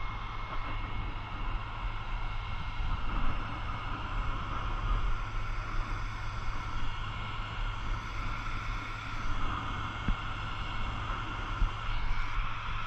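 Steady rushing of a water stream pouring from the ladder pipe nozzle at the top of a fire truck's aerial ladder, with wind on the microphone and a constant low rumble underneath.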